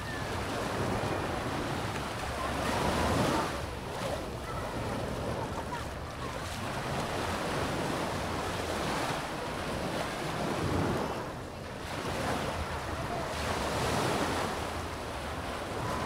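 Sea waves washing up on a sandy beach, the surf swelling and ebbing every few seconds, with wind rumbling on the microphone.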